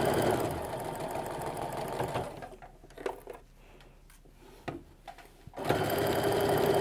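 Electric sewing machine stitching a seam through quilt blocks at a steady speed. It stops about two seconds in for roughly three seconds, with a few light clicks, then starts stitching again near the end.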